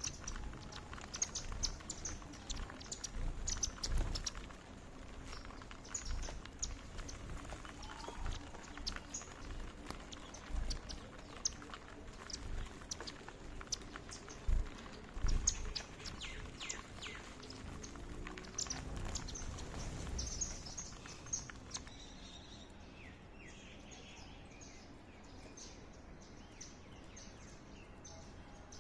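Indian silverbills calling, a busy run of short, high chirps with occasional low thumps, thinning to fainter, sparser chirps after about twenty seconds.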